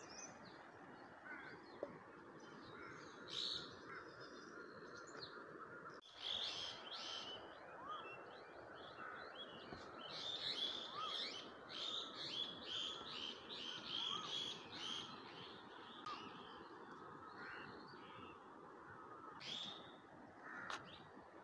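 Birds chirping over a steady background hiss, with a quick run of repeated chirps in the middle.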